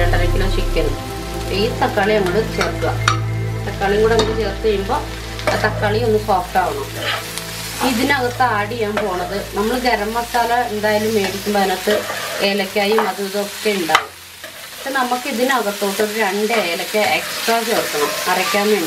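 A perforated metal spatula stirs and scrapes sliced onions, cashews, green chillies and chopped tomatoes in an oiled frying pan, and the vegetables sizzle. The scraping and tossing go on irregularly, with a sharp knock and a short lull about fourteen seconds in.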